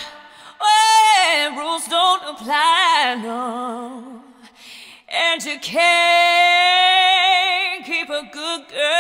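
Music: a solo singing voice with wide vibrato, running quickly up and down through the notes, fading almost away about four to five seconds in, then coming back to hold one long note.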